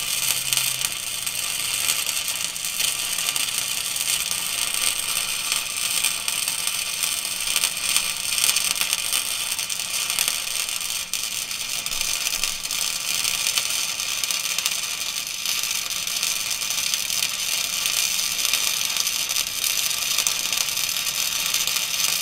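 Wire-feed (MIG) welding: a steady crackling, sizzling arc as a caliper mounting bracket is welded onto a rear axle housing.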